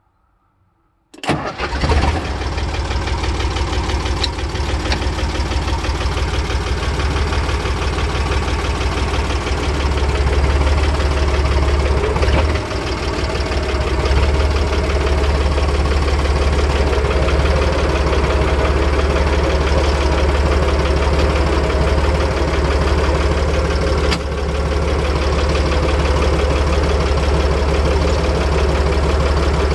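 Vintage Fendt Farmer 2 DE tractor's diesel engine starting about a second in, catching at once, then running steadily. It gets a little louder from about ten seconds in.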